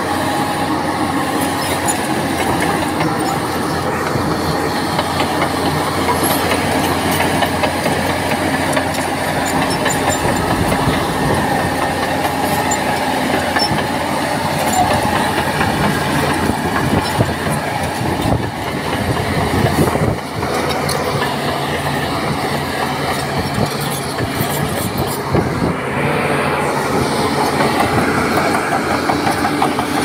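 Crawler bulldozer at work: its diesel engine running steadily while its steel tracks clatter without a break, the engine note shifting a few times as it works.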